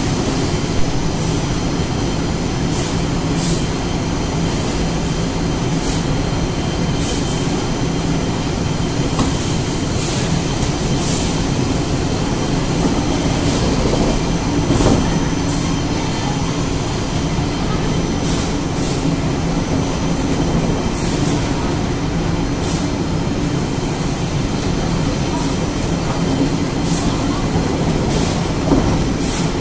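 CLM S.feed-M manual feeder with vacuum suction and the flatwork ironer line running: a steady mechanical drone with several low hum tones, and brief sharp noises now and then.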